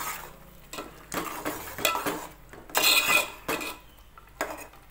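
Steel spoon scraping and knocking against an aluminium pot while stirring thick ground masala frying in oil, in irregular strokes, loudest about three seconds in.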